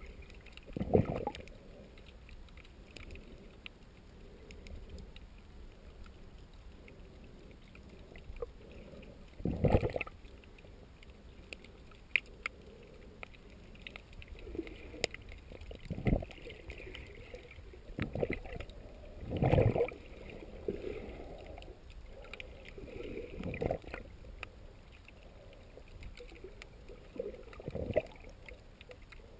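Water moving around a camera held underwater while snorkeling, heard muffled. Several irregular louder whooshes stand out over a low wash, with a few sharp clicks.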